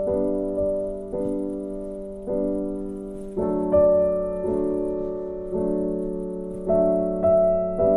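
Background piano music: slow, sustained chords and single notes, each struck and left to ring and fade.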